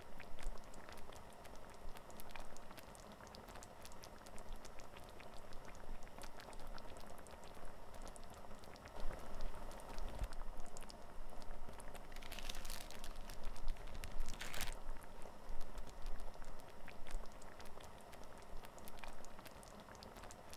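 Plastic food packaging crinkling as it is handled, in two louder rustles about two thirds of the way in, over a steady light crackling patter.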